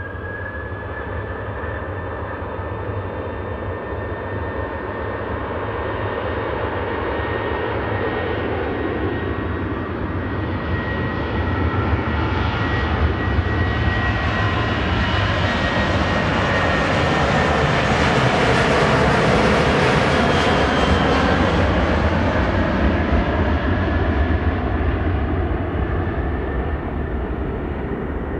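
Boeing 737-800's CFM56 jet engines at takeoff thrust on the takeoff roll: a steady high whine over a low rumble that has just finished spooling up. It grows louder as the jet passes close by, peaking about two-thirds of the way through, then the pitch drops and the sound eases as it rolls away toward lift-off.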